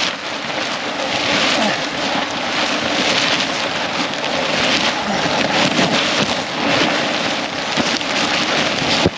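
Nylon asymmetric spinnaker rustling and crackling as armfuls of the sail are hauled in by hand during the douse, the cloth right against the microphone. It makes a continuous, dense, crackly rustle.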